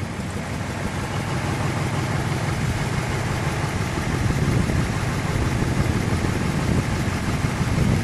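1955 Ford Thunderbird's 292 cubic-inch Y-block V8 running at low speed as the car rolls slowly toward the microphone, a steady engine note growing a little louder as it nears.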